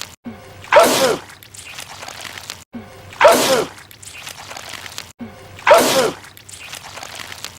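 A man's loud sneeze, the same sneeze repeated three times about two and a half seconds apart, each a sharp burst of breath with a short falling voiced cry.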